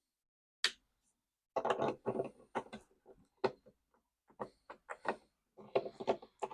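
A sharp click about half a second in, then a run of small plastic clicks, taps and rattles: a taillight bulb socket and bulb being handled during a swap from the stock turn/brake bulb to an LED bulb.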